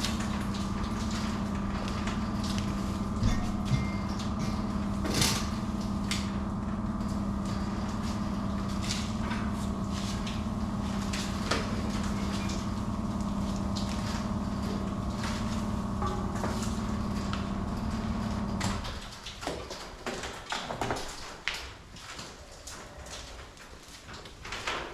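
A steady hum from workshop machinery, with a strong low tone, cuts off suddenly about 19 seconds in. After it stops there are scattered light knocks and clatter.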